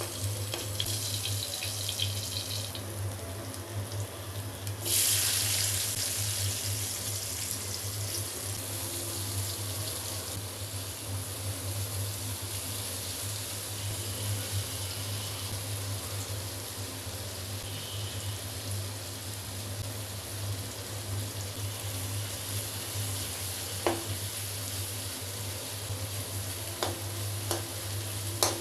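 Pointed gourd (potol) slices frying in hot oil in a pan: a steady sizzle, with a sharp surge of sizzling about five seconds in. A few light clicks sound near the end.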